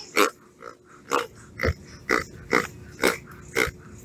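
A run of short pig oinks, about two a second.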